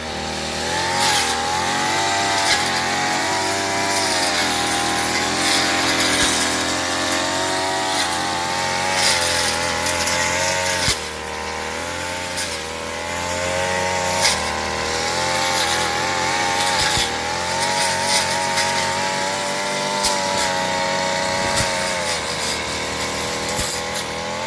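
Small petrol grass-cutting machine running at work, its engine pitch wavering up and down with the throttle, with a short drop in level about eleven seconds in.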